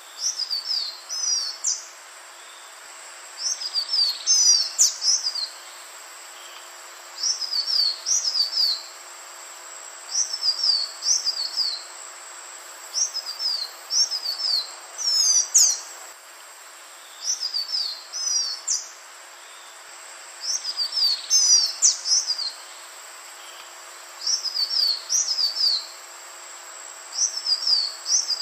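Male green iora singing: short phrases of rapid, high, sweeping whistled notes, repeated about every two to three seconds. A faint steady high whine runs beneath.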